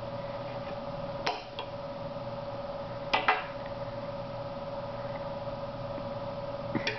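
Small table-top clicks and clinks at a dinner table, three brief ones about a second, three seconds and nearly seven seconds in, over a steady hum.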